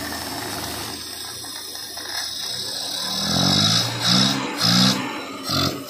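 Maruti 800's carburetted three-cylinder petrol engine idling, then blipped three times by hand at the carburettor throttle linkage: the pitch rises and falls quickly on each rev, with a hiss from the open carburettor throat. The engine is being checked for a carburettor problem.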